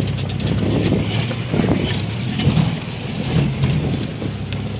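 Off-road rig's engine running as it crawls over rock ledges, heard from inside the cab, with scattered knocks and rattles over the steady engine hum.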